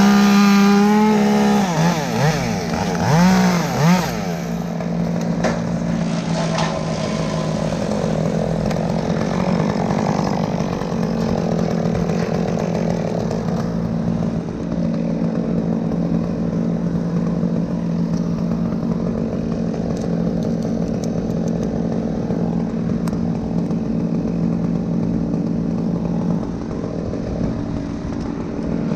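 Chainsaw revving up and down a few times in the first seconds, then running steadily at high revs for the rest of the time.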